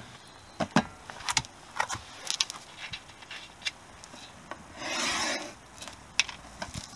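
Plastic-wrapped sump gasket package being handled and rubbed: scattered small clicks and rustles, with one longer rubbing rustle lasting under a second about five seconds in.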